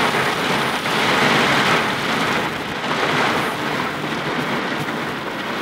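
Heavy rain beating steadily on a truck's roof and windshield, heard from inside the cab.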